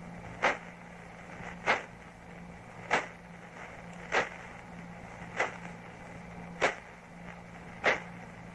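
Radio pulses of a pulsar rendered as sound: sharp, evenly spaced clicks about every 1.2 seconds over a steady low hum and hiss.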